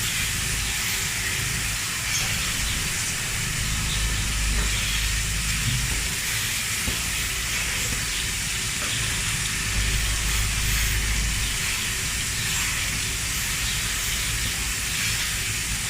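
Milking-shed machinery running: a steady hiss with a low hum underneath that swells and fades from time to time.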